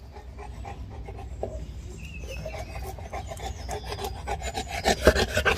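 A Dogue de Bordeaux gnawing and chewing a tough fabric plush pig toy: a rasping, rubbing chew that grows louder and busier toward the end.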